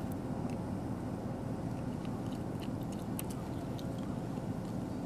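Steady low rumble of travel across snow-covered sea ice, with scattered light clicks and crackles.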